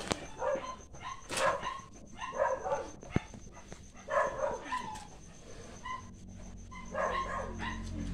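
A dog barking and yelping in short, separate calls, about six in all, irregularly spaced and dying away after about five seconds.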